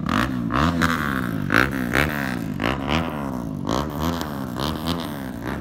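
Kawasaki Ninja motorcycle engine revved in quick repeated throttle blips, its pitch rising and falling about twice a second, loud.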